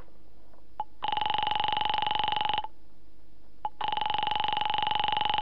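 Telephone ringing heard down the line: two long, buzzy, pulsing rings about a second apart, each with a faint click before it. The call to the operator is ringing unanswered.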